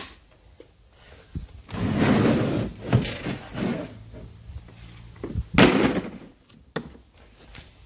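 Hard plastic tool cases being handled on a toolbox top: a scraping slide lasting a couple of seconds, then a sharp clunk as a case is set down or knocked, and a few lighter knocks.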